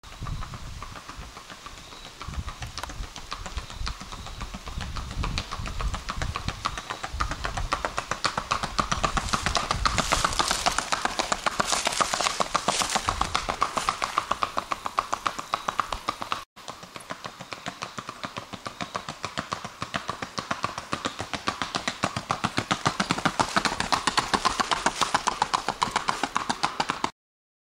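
Steel-shod hooves of a racking mare striking a paved road in a fast, even four-beat rack, a rapid run of sharp clip-clops. The hoofbeats break off for an instant about 16 seconds in, then carry on.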